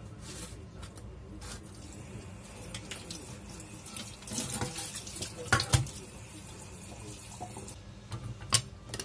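Raw chicken being washed by hand in a steel bowl of water in a stainless steel sink, with a tap running steadily until it stops near the end. Sharp splashes and knocks as the pieces are lifted and dropped back, the loudest a little past halfway.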